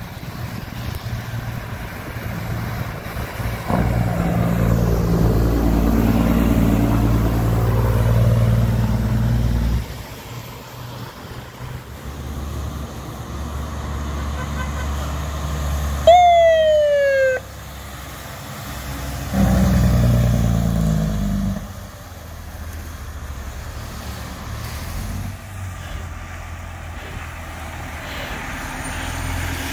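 Heavy trucks driving past. A Kenworth T800B's diesel engine pulls through with its note rising. Later a red International fire tanker's electronic siren gives one short whoop falling in pitch, about sixteen seconds in, which is the loudest sound here.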